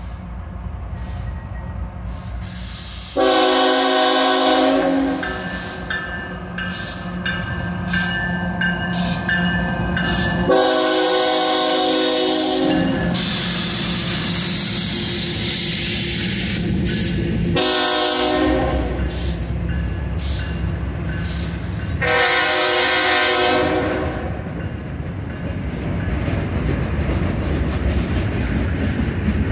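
CSX freight train's diesel locomotives sounding the horn in four blasts, long, long, short, long: the standard grade-crossing signal. The train rolls past with a steady rumble of locomotives and freight cars.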